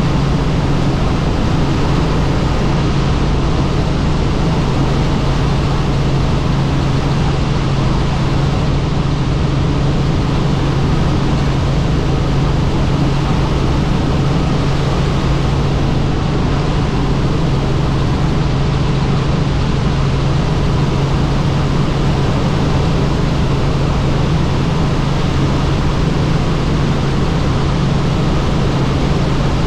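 Helicopter in steady flight: a loud, unchanging drone of engine and rotor with a strong low hum.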